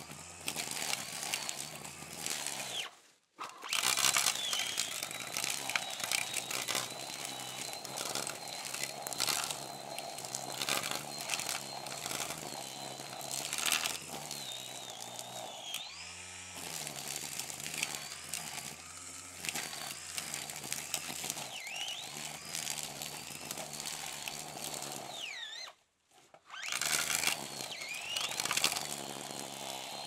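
Brush cutter running at speed, its high whine rising and falling. The sound drops out briefly twice, about three seconds in and again near the end, where one recording gives way to the next.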